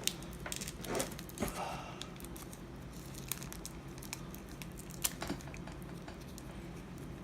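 Yu-Gi-Oh! booster pack wrapper crinkling, with scattered soft clicks and rustles as the cards are handled.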